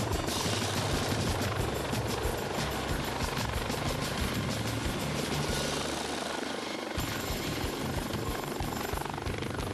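Helicopter rotor and turbine running as it descends to land, with a rapid, even beat of the blades throughout.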